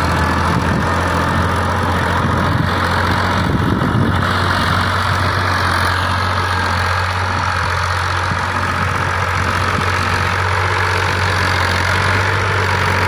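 Fiat 480 tractor's three-cylinder diesel engine running steadily under load while pulling a tine cultivator through ploughed soil.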